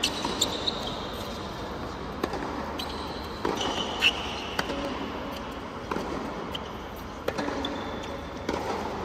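Tennis rally on a hard court: sharp pops of racket strings striking the ball and the ball bouncing, roughly one every second, with brief high shoe squeaks as the players move and a steady murmur from the crowd underneath.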